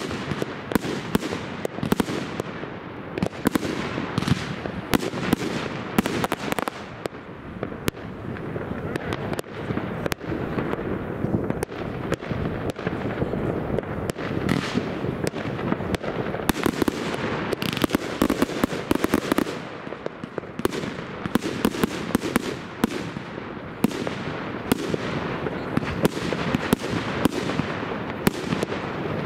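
Fireworks going off in a continuous barrage: irregular sharp bangs, several a second, over a steady crackling wash from many aerial bursts and rockets.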